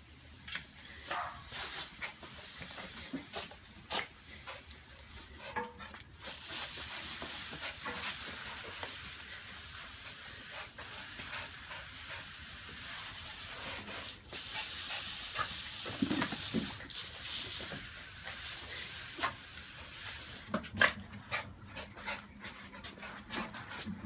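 Water spraying from a garden hose in a steady hiss while a small dog, a Maltipoo, jumps and snaps at the spray, with scattered short clicks and splashes and a few brief dog sounds about two-thirds of the way through.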